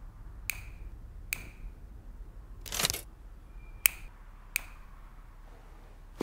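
Four sharp clicks, each with a brief high ringing, and a short, louder rush of noise about three seconds in.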